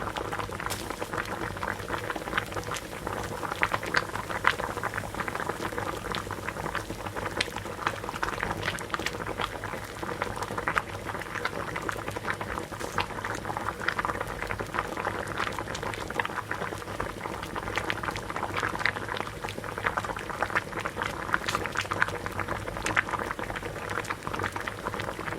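Water at a rolling boil: a dense, continuous bubbling with many small pops, under a steady low hum.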